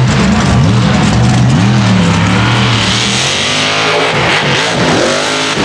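Mega mud truck's engine revving hard under full throttle on a dirt race course, its pitch rising and falling with the throttle. In the second half, as the truck jumps, the revs climb higher and swing up and down.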